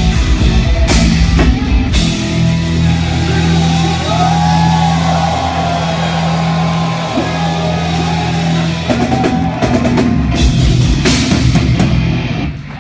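Heavy metal band playing live through a club PA: fast drumming under distorted guitars for the first second or two, then a long held chord ringing out with cymbal crashes as the song ends.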